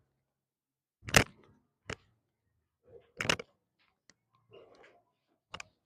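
A few sharp clicks: the loudest about a second in, another just after three seconds, and one near the end, with soft rustling between.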